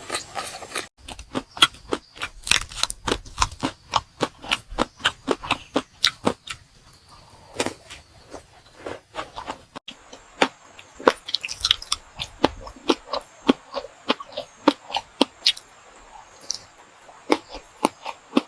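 A person chewing crunchy food close to the microphone: rapid crisp crunches, about four a second, with brief breaks between mouthfuls.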